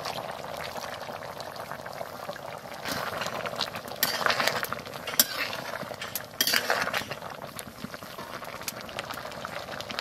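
Vegetable curry boiling in a metal kadai, a steady bubbling, with a spatula stirring it and clinking and scraping against the pan in a cluster of sharp clicks around the middle.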